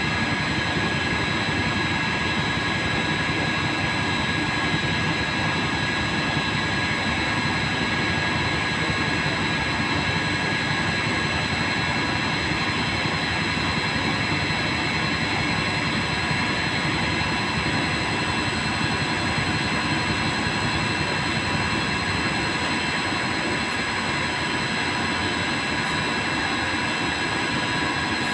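TIG welding arc running steadily: an even hiss with a steady high whine.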